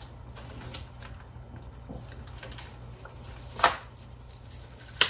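A few light clicks, then two sharp knocks about a second and a half apart, over a steady low hum.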